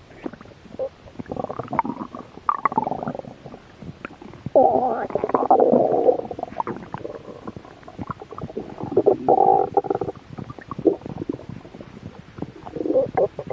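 Human stomach growling and gurgling with hunger: a string of irregular rumbles with small pops and bubbling between them. The longest and loudest growl comes about five seconds in, another around nine seconds, and a short one near the end.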